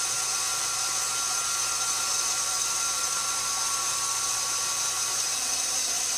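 KitchenAid stand mixer motor running steadily, driving the stainless steel pasta roller attachment as a sheet of dough feeds through the rollers: an even electric whine.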